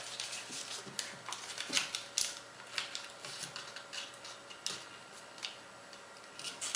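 Origami paper being flipped over and folded by hand: a string of light crinkles, rustles and taps as the sheet is handled and creased, thinning out near the end.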